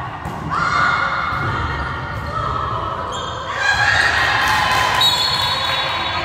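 Indoor volleyball game sounds echoing in a large gym: dull thuds of the ball and players on the court, with long, steady, high-pitched tones starting abruptly several times.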